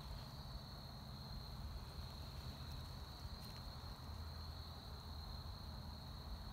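Crickets trilling in a steady, unbroken high-pitched chorus, faint, over a low rumble.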